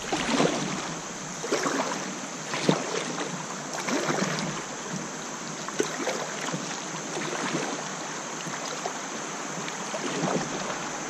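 River water splashing and lapping against a kayak's hull, picked up close by a camera mounted on the bow, with irregular louder splashes every second or so as the boat moves into choppy water.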